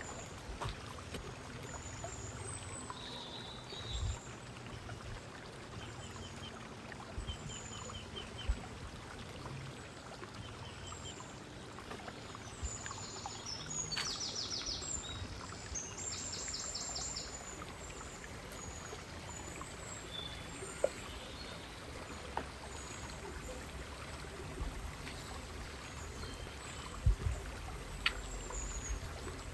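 Outdoor ambience: steady background noise with small birds chirping now and then, including a quick run of rapid repeated chirps about halfway through, and a few soft low thumps.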